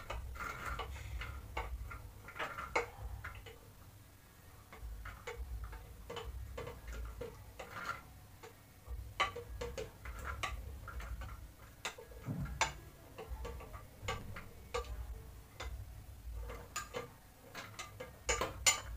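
Chopped carrot and ginger pieces tipped into a plastic blender jug, landing with many light, irregular clicks and taps.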